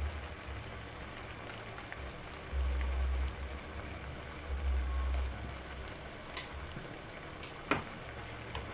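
Seasoned braising liquid, almost boiled dry, bubbling and sizzling in a wok of chicken pieces, a steady hiss. Two short low rumbles come in the middle, and a sharp tick near the end.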